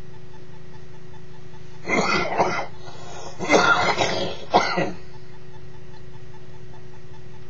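A man coughing in two bouts, the first short and the second longer with several hacks, just after a drag on a cigarette.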